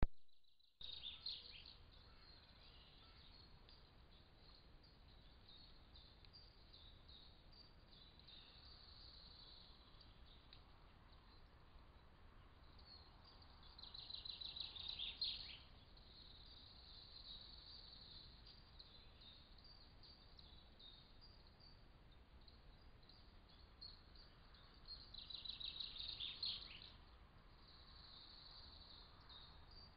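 A songbird singing a rapid trilled phrase of about two seconds, three times roughly twelve seconds apart, each ending in a short downward flourish, over a faint steady high hiss. A brief click at the very start.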